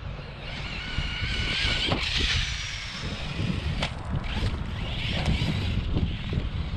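High-pitched whine of a brushless-motor RC car driven by a Hobbywing Max6 1650kv motor, falling slowly in pitch over two or three seconds, with a few sharp clicks and steady wind rumble on the microphone.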